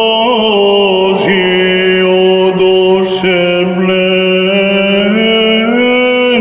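A solo male voice chanting an Orthodox sticheron for the Nativity of the Mother of God, in long held notes with slow turns in pitch.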